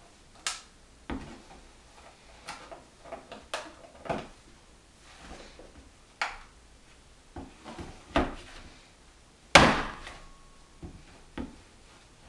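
About ten irregular knocks and thumps of a boxed block of homemade soap against a wooden cutting board as it is worked loose from its mold, the loudest about three-quarters of the way through.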